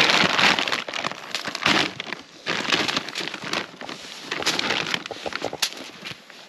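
Salt and pepper shaken over fish fillets in aluminum foil, in several short bursts of gritty hiss, with a sharp click near the end.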